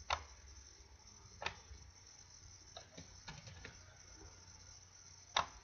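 Computer mouse clicks and keyboard key presses while editing a slide. One sharp click comes right at the start, another about a second and a half in, and the loudest near the end, with a few lighter taps in between. A faint low hum runs underneath.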